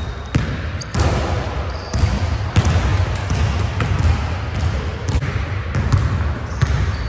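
Basketball bouncing on a hardwood gym floor, a series of sharp thuds, then dribbled at a run toward the hoop, with sneaker footsteps. A steady low rumble sits underneath.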